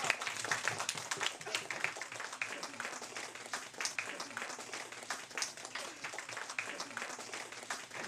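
A small group of people clapping and applauding, a dense run of uneven claps that is loudest in the first second and then carries on more softly.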